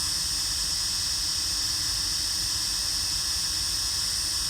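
Steady hiss with a high, even sheen, unchanging throughout, with no distinct events.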